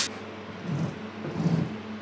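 Toothed belt drive on the jet-ski driveline turning, a low mechanical whir that swells and fades about every three-quarters of a second as it runs.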